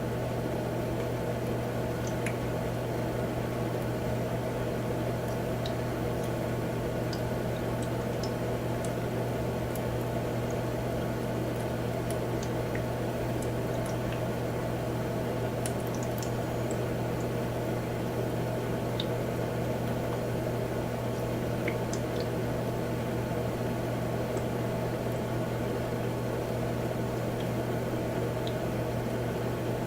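Humidifier running: a steady low hum with a constant watery hiss, dotted with faint scattered ticks of water.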